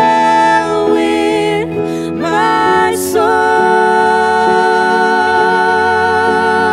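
Slow worship music: a voice holding long sung notes with vibrato over a sustained instrumental backing, moving to a new held note about three seconds in.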